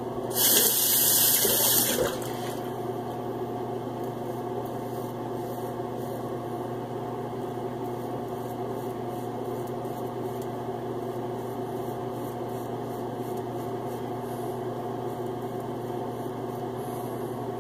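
Tap water runs briefly into a sink, starting about half a second in and stopping about two seconds in. After that a steady low mechanical hum continues.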